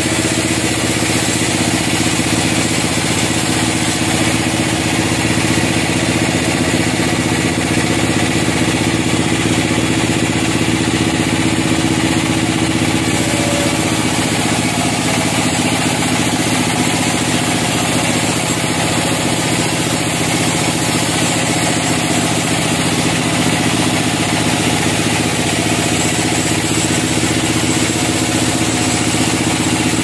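Band sawmill running steadily as its blade cuts a slab lengthwise off a pine log, an even machine hum with no break.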